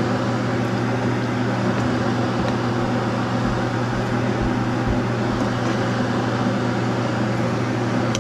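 Steady fan hum with a constant hiss.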